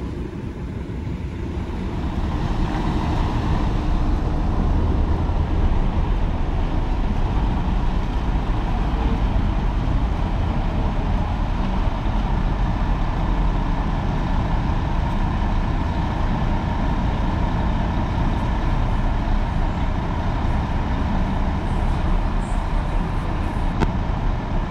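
Steady low rumble of diesel intercity coach and truck engines running.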